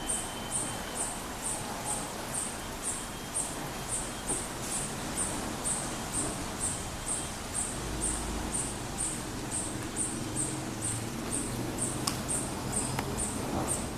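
A high, thin chirp from a small calling animal, repeated steadily about twice a second, over a faint low background hum.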